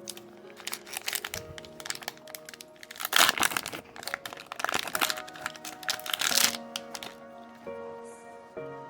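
Trading-card pack wrapper crinkling and crackling as it is torn open and handled, loudest about three seconds in and stopping about seven seconds in, over background music.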